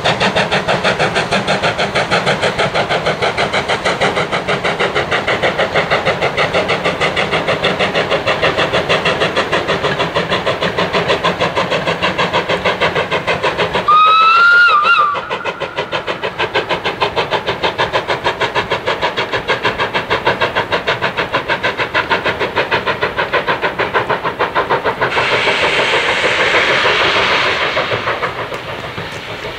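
Ivatt class 2 2-6-0 steam locomotive working hard uphill, its exhaust beating in a fast, even rhythm. A short whistle sounds about halfway through, and a burst of steam hiss rises near the end.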